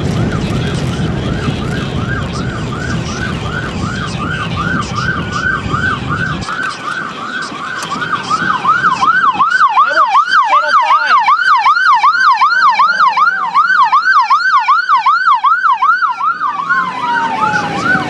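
Emergency vehicle siren on a fast yelp, about four sweeps a second, growing louder and deeper-sweeping about eight seconds in, then switching near the end to a slower wail that falls and starts to rise again. A low rumble runs underneath for the first six seconds or so and cuts off suddenly.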